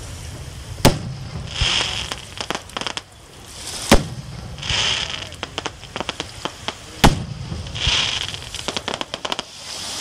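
Aerial fireworks bursting: three loud bangs about three seconds apart, each followed by a hiss and a run of rapid crackling from the burning stars.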